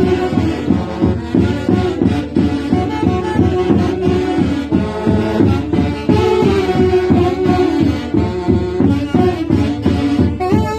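A live Andean orquesta band playing a santiago tune with a steady, even beat and several melody instruments sounding together.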